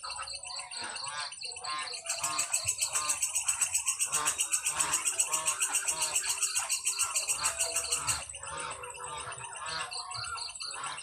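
Nature ambience: a steady high insect trill under many short bird chirps, with a louder, fast, even pulsing buzz of insects from about two seconds in until near the end.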